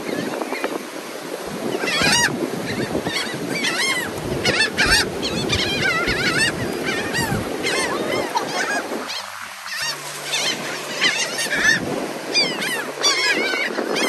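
A flock of seagulls calling constantly, many short rising-and-falling cries overlapping one another as the birds crowd in to be fed.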